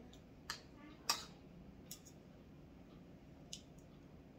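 Eating sounds: a handful of short, sharp clicks spread over a few seconds, the loudest about a second in.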